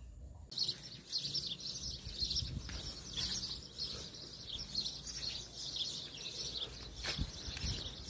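A dense chorus of many small birds chirping continuously, starting suddenly about half a second in.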